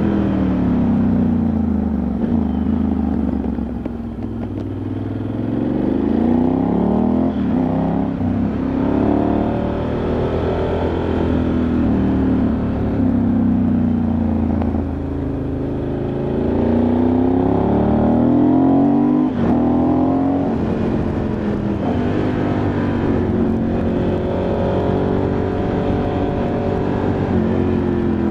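Ducati Multistrada 1100S air-cooled L-twin heard onboard under way, its pitch rising and falling repeatedly as the throttle opens and closes through the bends. Wind rushes over the microphone throughout.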